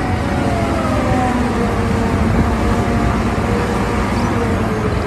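Vehicle engine sound, steady and loud, with whining tones that slowly fall in pitch as if a heavy vehicle is passing; it starts and stops abruptly.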